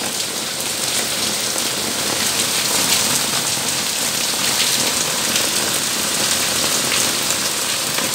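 Heavy rain falling steadily onto a concrete passage and wall, a dense, even hiss of a downpour.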